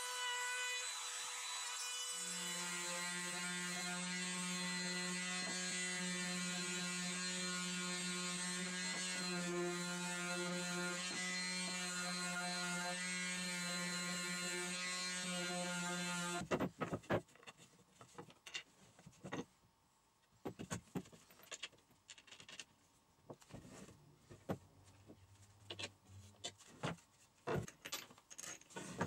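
Cordless trim router running steadily as it cuts along the edge of a wooden slat, settling to a lower pitch about two seconds in. About sixteen seconds in it stops abruptly, giving way to scattered knocks and clinks of wooden chair parts and metal bolts and washers being handled on a workbench.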